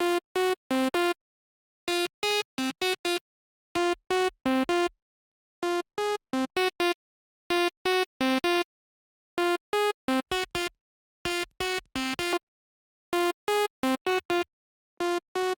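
Electronic synthesizer notes from an Ableton sound-design rack: short, bright, pitched blips played in quick clusters of four or five, a cluster about every two seconds, with the pitch jumping between a few notes and silence in between.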